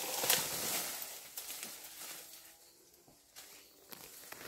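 Leaves and stems of a cut bamboo stalk rustling and crackling as it is dragged up through the branches. The rustle dies away about halfway through, leaving a few faint taps near the end.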